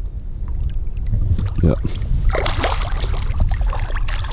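Water splashing as a large wels catfish breaks the surface beside the boat, loudest about two and a half seconds in, over a steady low wind rumble on the microphone. A short voice sound comes just before the splash.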